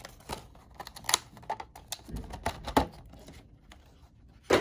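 Rigid plastic packaging of a pin collection box being handled: a run of crisp crackles and sharp clicks, with a louder click just before the end.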